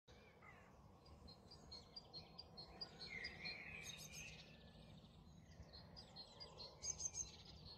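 Faint outdoor birdsong: several birds chirping with short repeated notes over a faint steady low hum.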